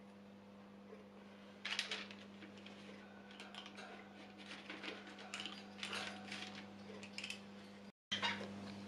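Metal spring-release scoop clicking and scraping as its lever is squeezed to release cookie dough onto parchment paper: a series of faint, irregular clicks.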